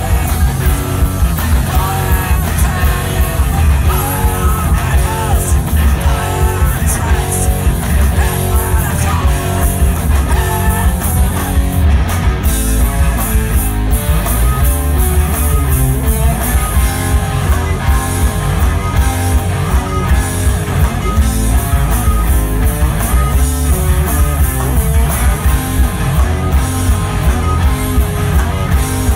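A rock band playing live and loud: electric guitars through Marshall amplifiers, bass guitar and drum kit.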